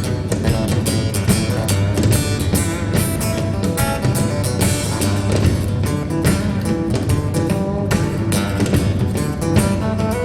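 Song with strummed acoustic guitar and a steady drum beat, played back through a bookshelf loudspeaker under test.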